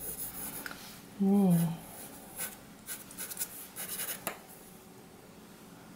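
Graphite pencil scratching across paper in a run of short strokes, sketching light guide lines.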